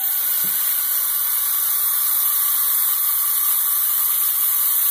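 Compressed air hissing steadily through the compressor hose into the pressure chamber of a homemade 3-inch PVC pneumatic cannon, filling it to 90 psi.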